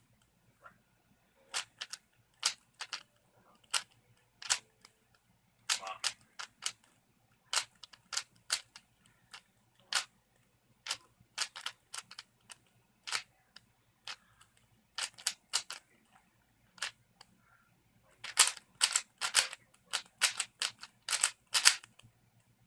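3x3 Rubik's Cube being turned by hand: uneven plastic clicks of the layers snapping round, one to a few a second, with a quicker, louder run of turns near the end.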